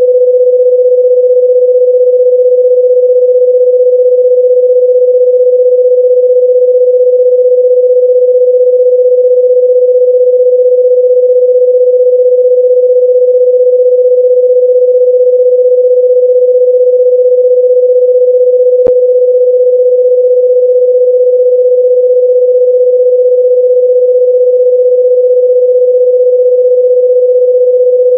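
A loud, steady electronic sine tone near 500 Hz, held unchanging, with a single sharp click about two-thirds of the way through.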